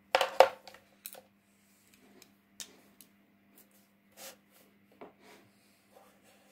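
Markers being handled and used on paper: two sharp knocks in the first half second, the loudest sounds, then scattered faint clicks and short scratches of a marker tip on paper.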